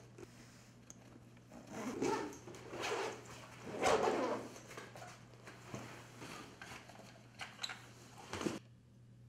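Zipper on a padded tripod bag being pulled open in three rasping strokes about a second apart, followed by fabric rustling and a few light knocks as the bag and tripod are handled, under a low steady electrical hum.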